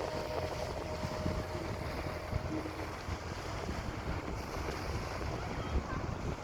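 Wind buffeting the microphone aboard a ferry, over a steady rush of sea and ship noise. A lingering music note fades out about two seconds in.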